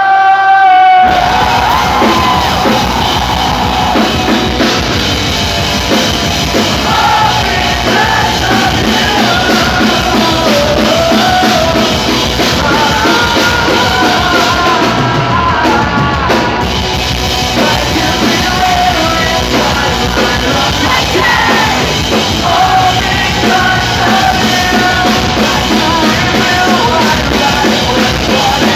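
Metalcore band playing live. A held sung note runs over thin backing until about a second in, when the drums, bass and distorted guitars come in at full volume, with yelled and sung vocals over them.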